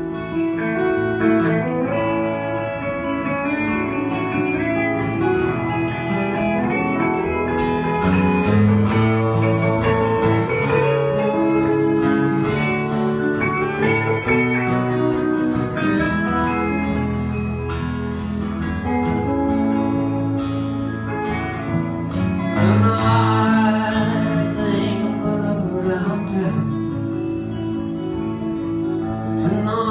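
Live band music: acoustic and electric guitars playing a country-folk song, a largely instrumental stretch with singing briefly heard about two-thirds of the way through.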